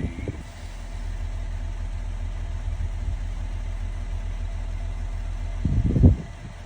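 Engine idling, a steady low rumble, with a brief louder low thump about six seconds in.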